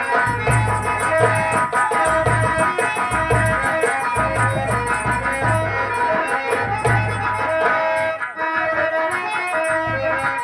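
Instrumental band music with a steady, repeating drum beat under sustained melodic lines.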